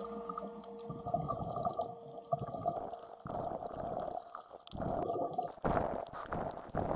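Underwater camera audio: muffled water gurgling and crackling, with irregular swells of bubbling noise.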